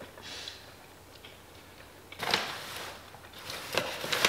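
Quiet eating and handling noises: a soft rustle a couple of seconds in and scattered small clicks, from takeout food being handled and bitten.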